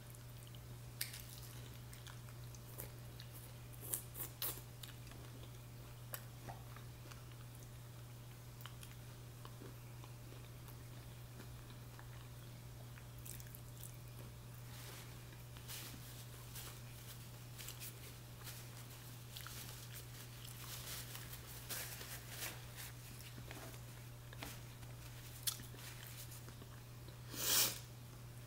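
Chewing and biting into a taco close to the microphone: scattered small crunches and mouth clicks over a steady low hum, with one louder burst about a second before the end.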